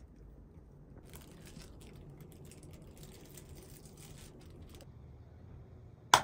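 Thin plastic wrap crinkling as it is peeled off a raw hamburger patty, with a single sharp click near the end.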